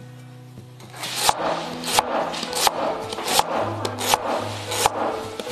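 Peeled fruit radish being cut into shreds: short rasping strokes in a steady rhythm, about one every two-thirds of a second, starting about a second in, over background music.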